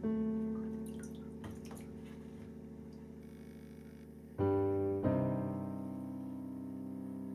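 Slow piano music: a chord struck at the start and left to ring away, then two more chords about four and five seconds in.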